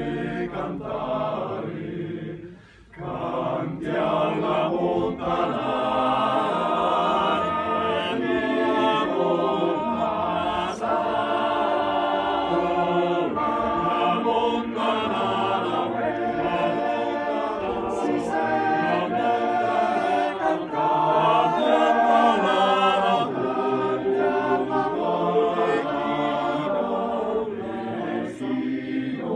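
Male voice choir singing a cappella in several parts, breaking off briefly between phrases about two and a half seconds in.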